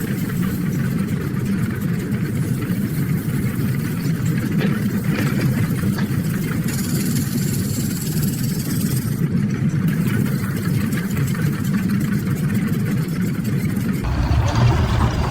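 Heavy engine idling with a steady, even rumble; the sound changes abruptly about a second before the end.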